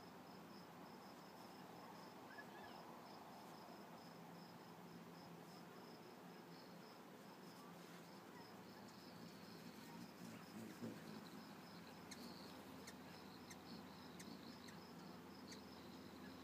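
Faint cricket chirping, an even high-pitched pulse about four times a second, with a second cricket joining about halfway through; otherwise near silence.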